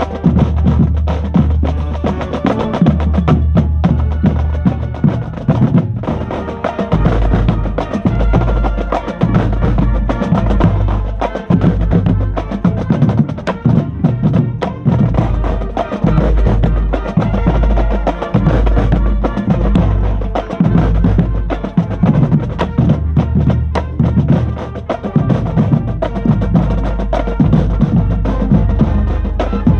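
Marching band playing, heard from inside the drumline: dense bass drum and snare strokes, with sharp clicking hits, over long held low notes that change pitch every second or two.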